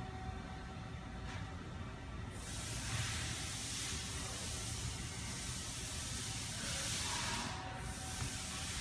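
Steady background hiss over a low rumble, growing louder and brighter a couple of seconds in.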